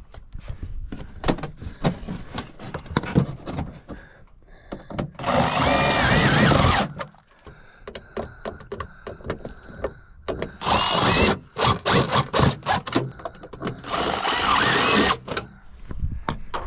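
Fascia installation work on wood trim: many sharp knocks and clatters, broken by three short runs of a power tool of about one to two seconds each, the loudest about five seconds in.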